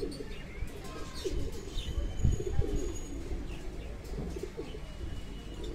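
Domestic highflyer tumbler pigeons cooing over and over in low, throaty warbles, with a few high chirps from other birds. A low thud or two about two seconds in is the loudest sound.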